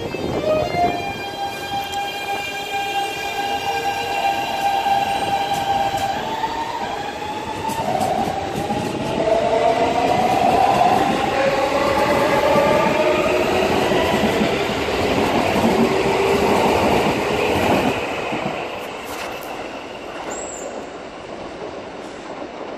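Keikyu 1000-series electric train's Siemens GTO VVVF inverter "singing" as the train pulls away: the traction motors' whine steps up through a scale of musical notes over the first few seconds, then rises in pitch as the train speeds up. Wheel and rail noise of the passing cars grows under it and fades after about eighteen seconds.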